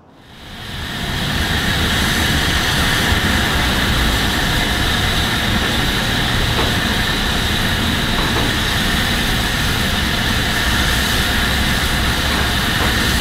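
Steam roaring from the safety valves of LMS Black Five 4-6-0 steam locomotive 44871 as it stands blowing off: a loud, steady hiss that builds up over the first second or so and then holds.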